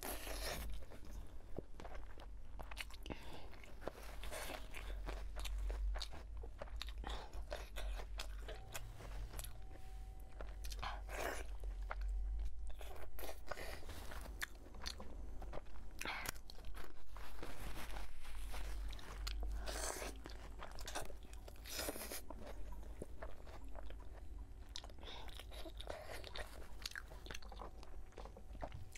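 Close-miked mouth sounds of eating braised pork knuckle: wet chewing, biting and smacking of skin and meat, a steady run of irregular clicks and smacks over a low, steady hum.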